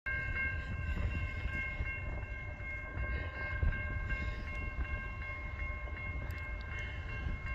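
Railroad grade crossing bell ringing steadily over a low rumble, the crossing signals warning of an approaching train.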